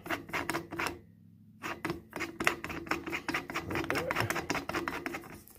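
Plastic intake air-filter housing being screwed by hand into an air compressor's pump head: a quick run of small clicks and rubbing from the threads and fingers on plastic, with a short pause about a second in.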